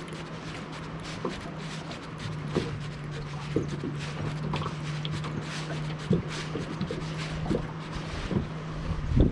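Fishing reel cranked fast on a quick lure retrieve: a steady low hum that gets louder about two seconds in and stops just before the end, with scattered light ticks and a louder knock at the very end.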